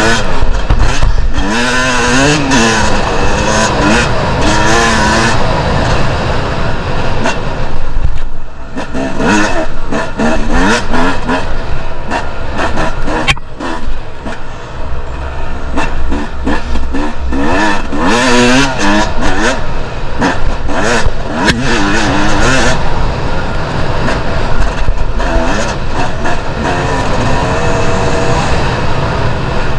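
Two-stroke enduro dirt bike engine revving up and down as it is ridden off-road, its pitch rising and falling again and again over a steady rush of noise.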